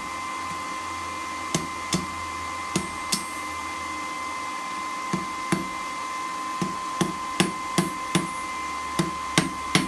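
Hand hammer striking red-hot file steel held in tongs on an anvil: about fourteen sharp blows at an uneven pace, several in quick pairs, with a pause around the four-second mark. A steady high whine and low hum run underneath.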